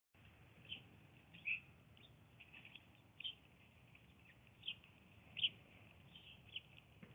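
Blue jay giving short, high chirping calls at irregular intervals, roughly one every second, some louder than others.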